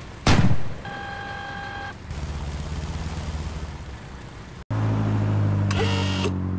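Toy military vehicle sound effects: a short loud blast, then an electronic beeping tone and a low engine rumble. After an abrupt cut, a steady, louder engine drone with a brief rattle.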